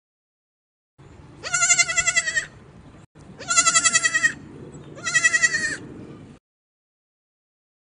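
Goat bleating three times, each a quavering call about a second long.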